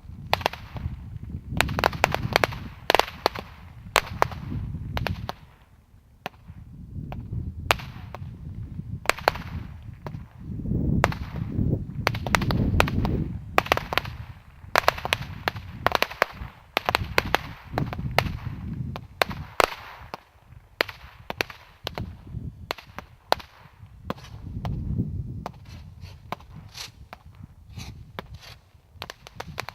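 Multi-shot firework cake firing: a rapid, irregular string of sharp bangs and cracks over a low rumble.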